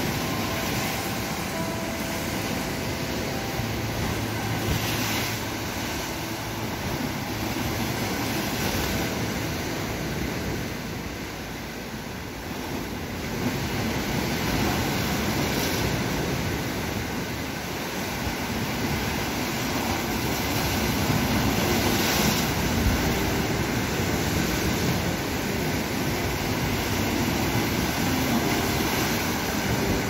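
Sea waves washing and splashing against a stone seawall: a steady rushing that swells every few seconds.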